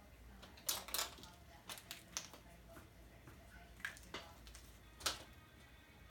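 Scattered light clicks and taps, irregularly spaced, as pens and markers are picked up, set down and knocked against each other on the desk.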